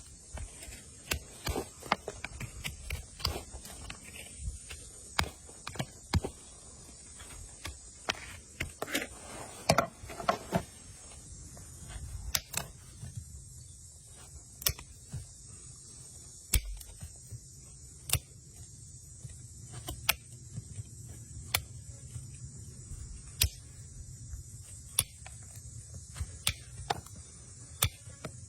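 Hoof trimming on a horse: irregular sharp clicks, snaps and knocks of trimming tools on hard hoof horn, roughly one or two a second, over a faint steady hum.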